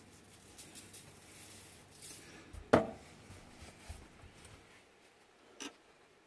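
Spice jars and shakers being handled on a kitchen counter: light clicks and rattles, with one sharp knock just under three seconds in and a smaller one near the end.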